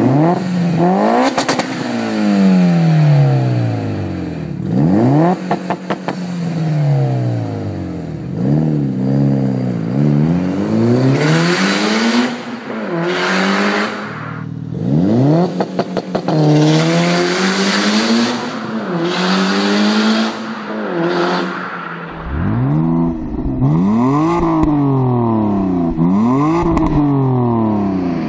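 Mitsubishi Lancer Evolution IX's turbocharged four-cylinder being revved again and again, each rev rising and falling in pitch. About 22 seconds in it gives way to a BMW 325i E90 with a BMW Performance rear silencer, revved in quick rises and falls.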